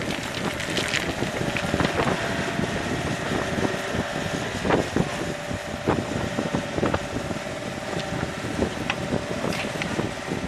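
Mini excavator's engine running steadily while its bucket digs a trench in stony ground, with several sharp knocks and clatters of stones scattered through. Wind buffets the microphone throughout.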